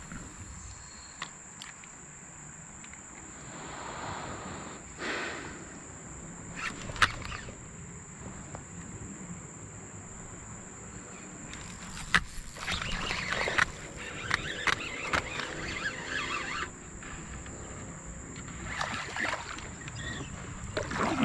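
Kayak paddle strokes swishing and splashing in shallow creek water, with scattered knocks and clicks of the paddle and fishing gear against the plastic hull. A steady thin high-pitched whine runs underneath.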